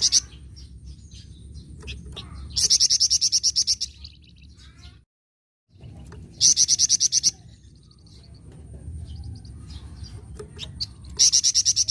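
Flamboyan songbird calling in full voice with its rapid 'nyecret' chatter: three loud bursts of fast repeated high notes, about fifteen a second, with softer chirps in between.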